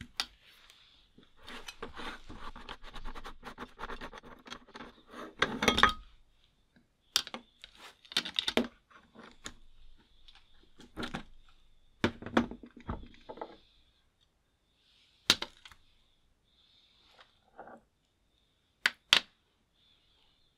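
A screwdriver scraping and clicking against the metal cutting plate of a meat grinder, working out sticky ground jelly-candy paste. There is a busy run of scraping and clinking over the first six seconds or so, then scattered single sharp metallic clicks.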